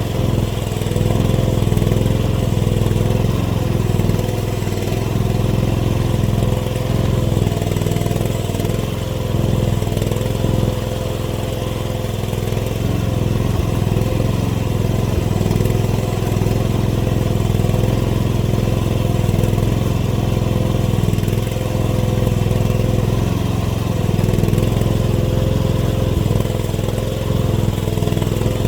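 AGT mini excavator's small engine running steadily, its pitch and level shifting slightly as the machine works its hydraulics.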